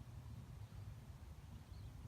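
Faint outdoor ambience: a steady low rumble with a brief faint high chirp near the end, likely a small bird.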